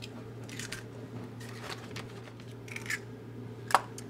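Eggs being cracked into a stainless steel stand-mixer bowl: several soft crackles of breaking and pulled-apart shell, then a sharp click near the end. A steady low hum runs underneath.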